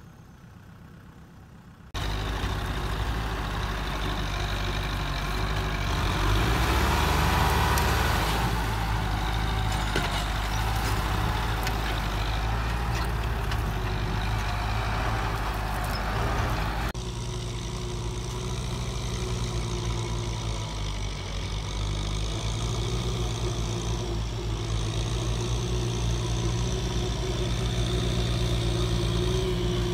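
Kubota tractor's diesel engine running steadily, quieter at first, then louder and closer while it pulls a disc harrow through soil. The sound changes abruptly twice.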